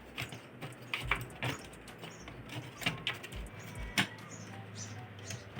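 Scattered light clicks and knocks of hands handling the front-panel circuit board and chassis parts as they are fitted back into a Denon AVR-1507 AV receiver, the sharpest knock about four seconds in.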